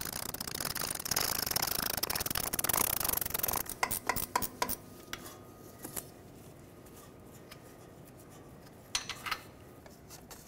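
Ratchet clicking in a fast, dense run for about three and a half seconds as a loosened 15 mm transmission-mount bolt is run out, then a few sharp metal clicks. A couple more metal clicks come near the end.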